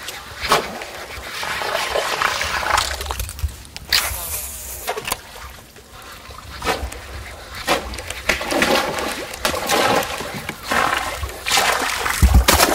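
A topwater lure jerked across a river's surface, splashing and ploshing again and again as it is retrieved, with a loud splash near the end as a peacock bass strikes at it.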